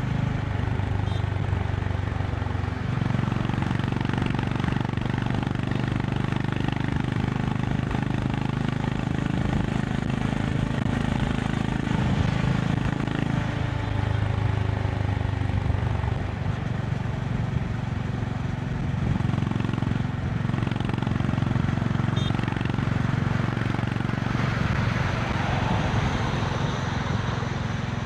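Honda CB350 RS's air-cooled single-cylinder engine running steadily at highway speed, with wind and road hiss over it. The engine note shifts about three seconds in, and the hiss gets louder near the end.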